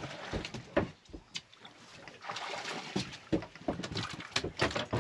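Wind and water noise aboard a small boat at sea, with scattered sharp knocks and clicks.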